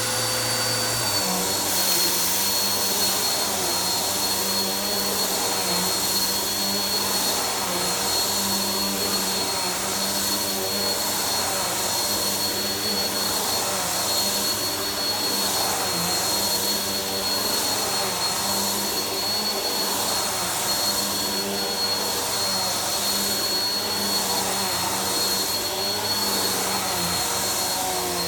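Vacuum cleaner running over carpet with a steady motor whine and rushing air. The pitch drops slightly about a second in as the motor takes load, and the rush swells and fades with the push-and-pull strokes.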